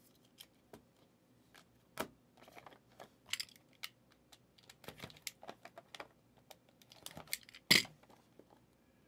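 Light clicks, taps and clatter of sports cards in plastic holders and cardboard card boxes being handled on a table, with one sharper knock about three-quarters of the way through.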